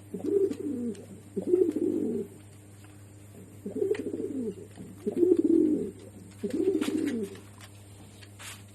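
Pigeon cooing: five low coos, each just under a second and falling in pitch, with short pauses between them.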